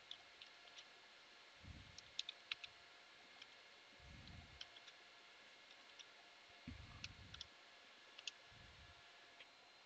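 Faint computer keyboard typing: scattered, irregular key clicks as a terminal command is typed, with a few brief low rumbles underneath.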